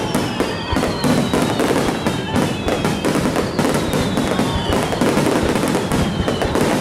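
Aerial fireworks crackling and popping in a dense, continuous barrage, with several high whistles that fall in pitch.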